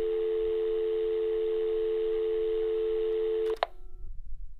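Telephone dial tone: a steady two-tone hum that cuts off suddenly about three and a half seconds in, with a click.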